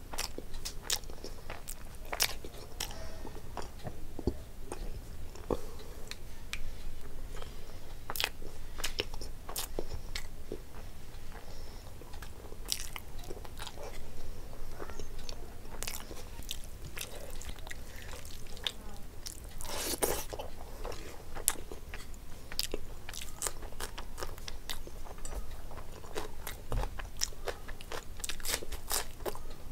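Close-miked sounds of a person eating rice and curry: chewing and biting, with scattered sharp crunches of crisp food and a denser run of crunching about twenty seconds in.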